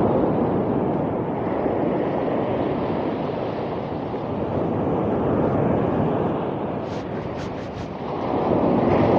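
Wind buffeting the microphone over the steady wash of surf breaking on a flat sand beach, swelling and easing.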